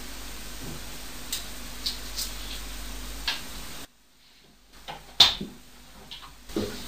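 A few faint, sharp knocks and taps over a steady background hiss. The sound drops out for about a second partway through, and the loudest knock comes just after.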